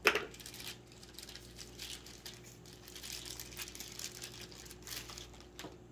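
Clear plastic packaging bag crinkling as a meat thermometer is handled in it, with a sharp tap right at the start.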